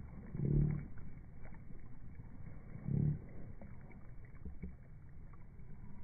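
An RC speed boat's brushless inrunner motor given two brief throttle blips, about half a second in and again about three seconds in, each a short rise and fall in pitch, over a steady low background of wind and water.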